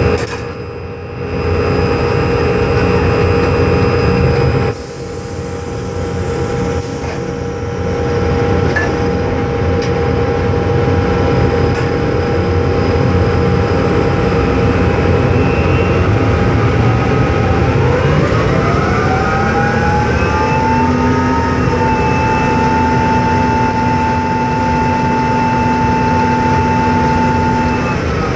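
Drilling rig machinery running with a steady loud drone. About two-thirds of the way in, the top drive spools up with a rising whine and holds a steady pitch as it turns the casing running tool to make up a 5 1/2-inch casing connection, then starts winding down right at the end.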